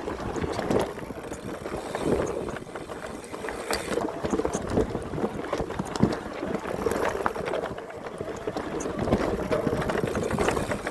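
Full-suspension mountain bike riding fast over rooty singletrack: a steady rush of tyres on dirt, broken by many short knocks and rattles as the wheels hit roots.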